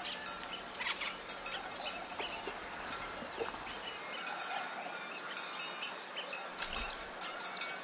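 Livestock bells clinking and jingling irregularly as animals move, with a brief low bump about two-thirds of the way through.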